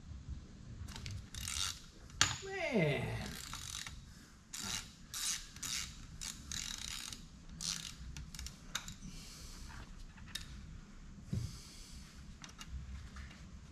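Hand tools working on metal: irregular spurts of ratchet-like clicking and scraping, with a short falling whine about two and a half seconds in.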